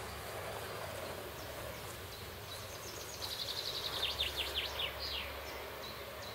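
Faint outdoor background with a songbird singing one short phrase about three seconds in: a fast trill that breaks into a run of quick descending notes.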